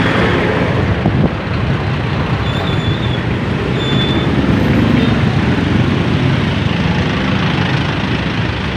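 Motorcycle engine running at low speed with road noise, riding through a heavy traffic jam among idling trucks.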